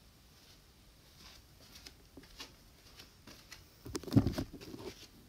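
Faint scattered ticks and rustles of a phone being handled, then louder low bumps and rubbing about four seconds in as the phone is moved about.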